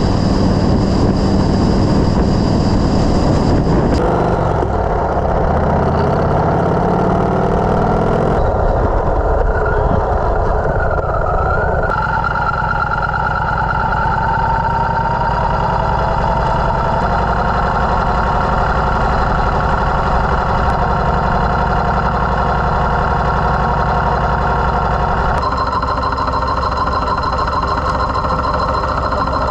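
Yamaha Road Star XV1600's air-cooled V-twin engine running, its sound changing abruptly several times, about 4, 8, 12 and 25 seconds in.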